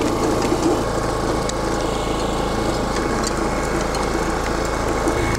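Small walk-behind cultivator (tiller) engine running steadily under load as its furrowing attachment cuts a furrow through the soil.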